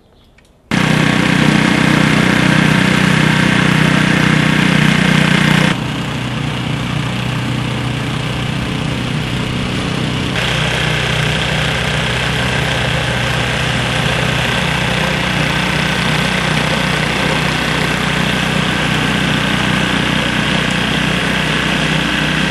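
Gasoline snowblower engines running steadily and loudly. The sound starts abruptly about a second in and shifts suddenly in tone twice, about six and ten seconds in.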